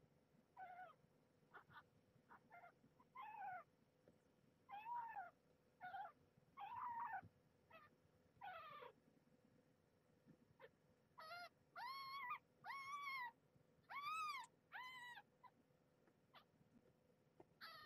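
Nursing kittens mewing and squealing in high, short cries, then around eleven seconds in a run of about six longer cries that rise and fall in pitch: protest calls as the kittens jostle one another for teats.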